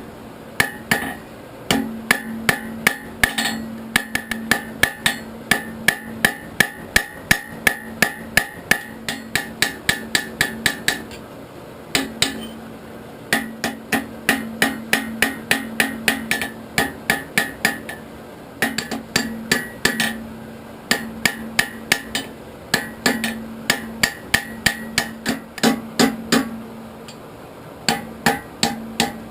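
Hand hammer striking hot steel on an anvil, forging a piece of an old file into a knife blank: runs of sharp, ringing blows about three a second, broken by short pauses, over a steady low hum.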